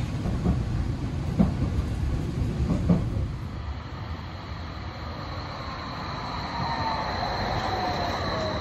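Badner Bahn light-rail car rolling along the track, heard from inside: a low rumble with a few knocks from the wheels. Then, from the platform, a Badner Bahn car arriving and passing close by, its electric drive whining and falling in pitch as it brakes, over a high steady whine.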